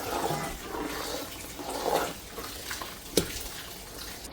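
Water pouring and splashing into a cooking pot of kitchri, with one sharp knock about three seconds in.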